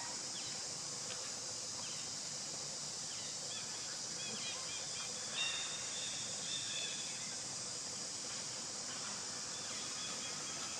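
Outdoor ambience: a steady, high-pitched insect drone, with a few short, high chirps clustered about halfway through.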